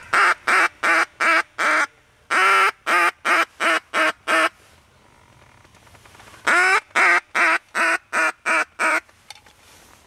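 Mallard duck call blown by a hunter in hen-mallard quacks: three loud runs, each a longer drawn-out first quack followed by four to six shorter, quicker ones, calling to flying mallards.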